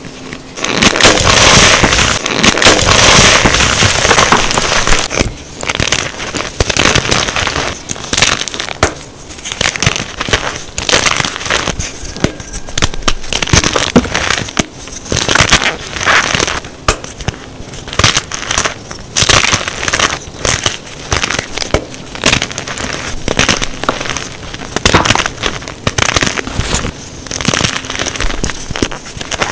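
Blocks of gym chalk coated in cornstarch being crushed and crumbled by hand. A dense, loud crunching runs from about a second in to about five seconds in, followed by many separate crunches as handfuls of crumbled, powdery chalk are squeezed.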